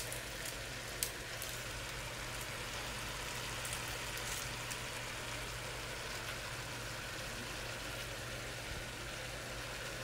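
Spinach, carrots and tomatoes with salt cod sizzling and simmering in a pot: a steady hiss, with one light click about a second in.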